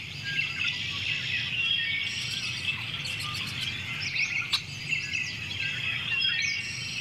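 Many small birds chirping and singing at once, a dense chorus of quick rising and falling calls over a low steady hum, with one sharp click about midway.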